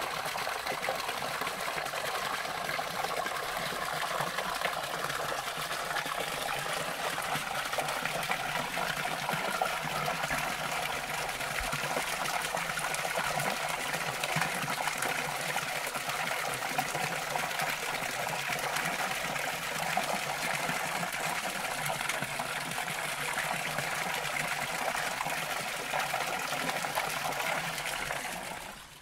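A thin stream of water falling from a rock ledge into a shallow pool, splashing steadily; the sound fades out near the end.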